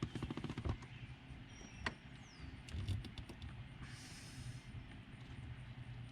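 Ratchet wrench clicking rapidly for under a second as a 7mm bolt on the shifter boot plate is worked loose, then one sharp click about two seconds in and scattered lighter clicks and a brief rustle.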